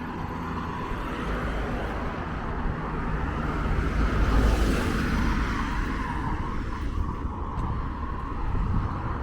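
Road traffic: a motor vehicle passing, its engine and tyre noise swelling to its loudest about halfway through and then fading.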